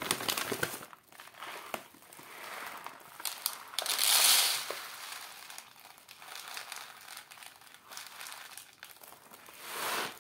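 Barley grain poured from a kraft paper bag into a plastic tray on a kitchen scale, with the paper bag crinkling and rustling throughout. The loudest part is a hiss of pouring grain about four seconds in.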